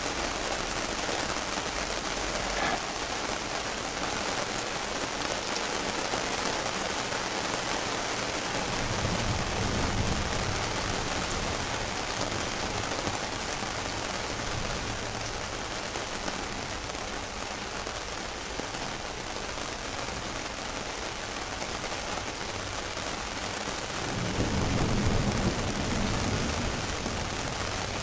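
Heavy rain falling steadily in a thunderstorm, with low rumbles of thunder about nine seconds in and again near the end, the second slightly louder.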